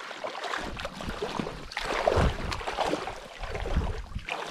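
Splashing, sloshing water in a shallow river as boats are waded and hauled through it, with an uneven wind rumble on the microphone.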